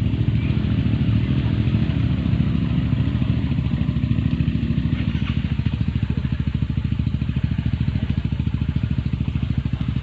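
Small single-cylinder motor scooter engine running steadily under throttle while the bike is walked and pushed through deep mud.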